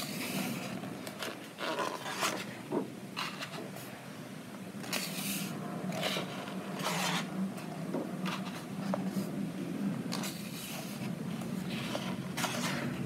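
Pages of a large softcover colouring book being turned and smoothed by hand: a string of short papery swishes and scrapes at irregular intervals.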